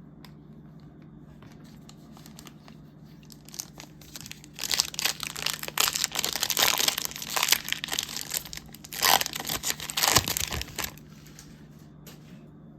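A sealed trading-card pack's plastic wrapper being torn open and crinkled by hand, a run of crackling rustles lasting several seconds, loudest near the end. A faint steady hum sits underneath.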